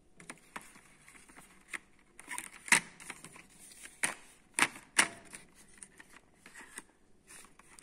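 Thin cardboard product boxes being handled, shifted and knocked against each other and the table: a run of sharp taps and clicks with light rustling between them, the loudest knocks a little under three seconds in and about five seconds in.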